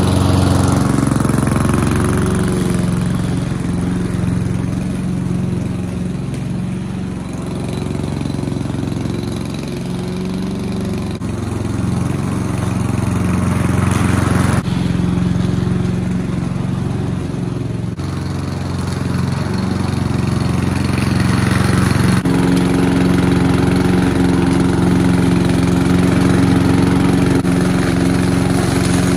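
Hayter Harrier 48 petrol roller lawn mower running steadily while cutting grass. Its engine note rises and falls a little as it is pushed along, and shifts abruptly about two-thirds of the way through.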